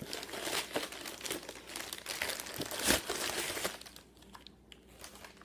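White packing paper crinkling and rustling as it is handled and pulled apart, loudest about three seconds in, then dying down to a few faint rustles.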